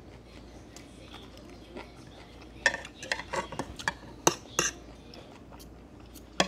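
Eating utensils clinking against dishes: a run of sharp clinks about three to five seconds in, and one more near the end.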